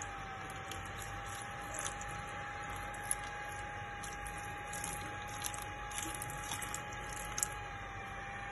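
Water poured from a steel tumbler splashing and dripping onto a powered outdoor LED display module in a waterproof test, with scattered small ticks over a steady whine.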